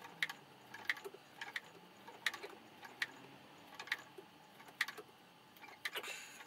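Short, sharp clicks and ticks, unevenly spaced at about one a second, from hand work on a motorcycle's front brake while it is bled: the brake lever being squeezed and a wrench opening and closing the caliper's bleed nipple.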